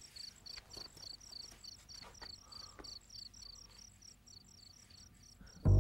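Crickets chirping evenly, about three chirps a second, as a quiet night ambience. Music comes in suddenly and loudly right at the end.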